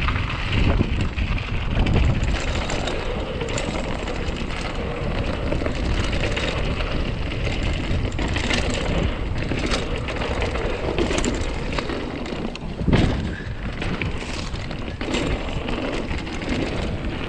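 Mountain bike running fast downhill on a dirt singletrack: tyres rolling over dirt and gravel with wind rushing over the microphone, and frequent rattles and knocks from bumps, the strongest about 13 seconds in.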